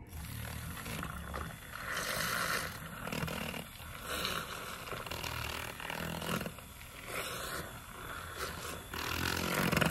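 Handheld battery milk frother running in a bowl of pudding mix and protein shake: a steady low motor buzz under churning, swishing liquid that swells and fades as the whisk is moved around the bowl.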